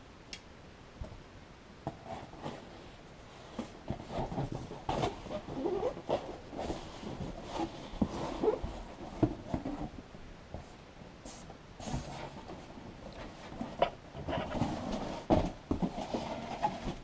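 Packaging being handled and pulled apart to get a boxed airsoft gun out: irregular rustling, scraping and knocks, with a few short squeaks.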